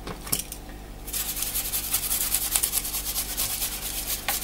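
Small brush scrubbing across a laptop motherboard in rapid back-and-forth strokes, starting about a second in after a couple of light knocks as the board is set down on a foam mat.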